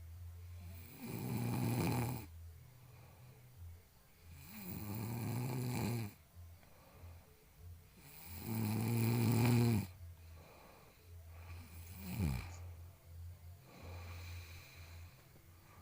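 A person snoring in sleep: three long snores about three and a half seconds apart, then a shorter one that falls in pitch and fainter ones near the end.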